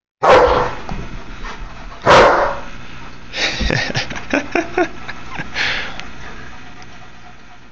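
Akita barking: two loud barks about two seconds apart, then a quick run of shorter, softer barks and one last bark.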